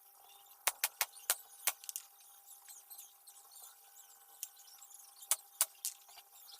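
A series of sharp clicks and taps of small hard objects, about seven in a cluster about a second in and three or four more near five seconds in, over a faint steady hum.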